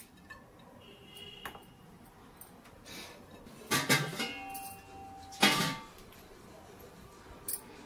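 Kitchen utensils clinking: a few sharp metallic knocks, several close together about four seconds in and a loud one a second or so later, some ringing briefly after.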